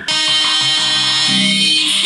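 Music playing through a small HY-40 portable rechargeable speaker, cutting in suddenly at full level.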